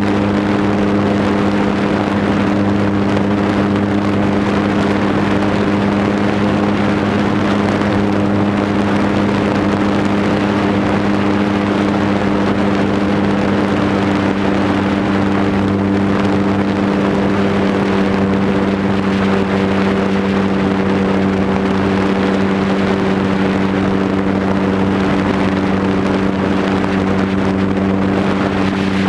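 Cub airplane's motor and propeller running at a steady cruise throttle in flight, an even droning hum with wind rushing over the onboard camera's microphone.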